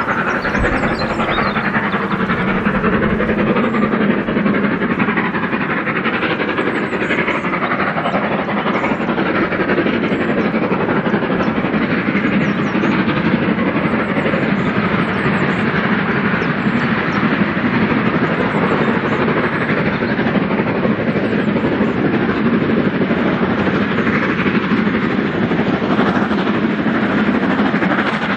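LMS Jubilee class 4-6-0 steam locomotive 45699 Galatea working hard, its three-cylinder exhaust beating fast and steadily as it accelerates a train of coaches away from a speed restriction.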